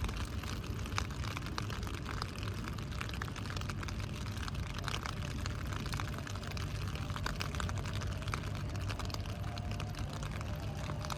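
Rain pattering, many small irregular drop ticks over a steady low hum.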